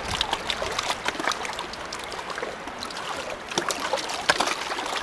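Small waves lapping at the lake shore, a dense, steady run of little splashes and ticks of water.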